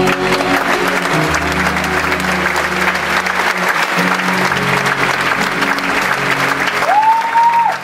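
Concert audience applauding and cheering at the end of a song, with the band's last low notes still ringing under the clapping. Near the end one long whistle rises out of the crowd and is held for about a second.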